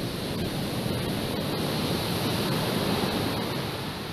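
Surf breaking and washing over the rocks at a lava ocean entry: a steady rush of waves that swells in the middle and eases a little near the end.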